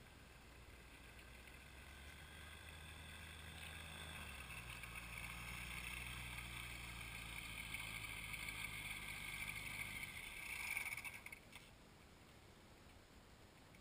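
A faint distant engine that grows steadily louder for about ten seconds, peaks, then drops away abruptly about eleven seconds in.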